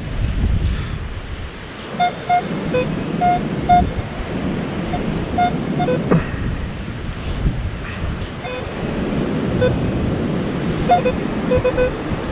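Minelab Equinox 800 metal detector giving short, repeated beeps at two pitches, a higher and a lower tone, in clusters: the detector's signal for a coin target, which turns out to be a zinc penny. Wind and surf noise run underneath.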